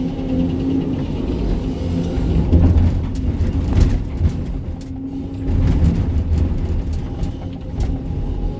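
Sany 305 hydraulic excavator's diesel engine running under working load, the low engine note swelling twice as the hydraulics are worked. Scattered sharp knocks and clatter of rock against the steel bucket sound over it.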